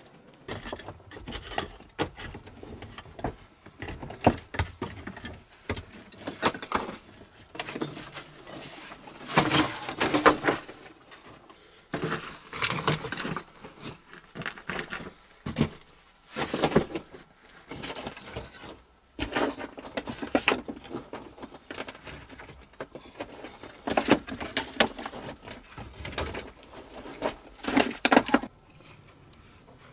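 Loose stones and broken rock rubble being shifted, picked up and dropped by hand, clattering and scraping in irregular bursts, along with handfuls of soil being scooped. Several louder clatters stand out.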